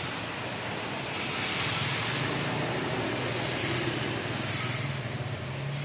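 Viar three-wheeled motor tricycle's engine running with a steady low drone under a loud rushing noise. The rushing swells and fades every second or two.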